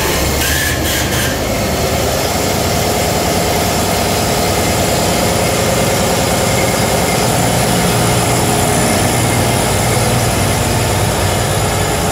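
Minneapolis Moline engine just started from cold, running steadily at warm-up idle.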